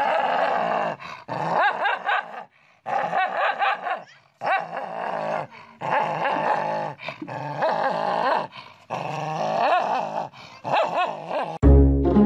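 A dog growling and barking aggressively at its own reflection in a mirror, in rough runs of a second or two broken by short pauses. About a second before the end, it cuts abruptly to brass music.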